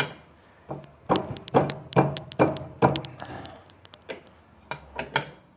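A tool tightening the drum pulley bolt on the back of a Samsung WF106 front-loading washer: sharp metal clicks and short knocks, about five in quick succession from about a second in and two more near the end.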